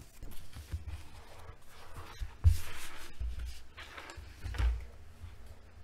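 Pages of a large paperback colouring book being turned and handled: paper rustling and swishing, with a sharp thump about two and a half seconds in and a softer one near five seconds.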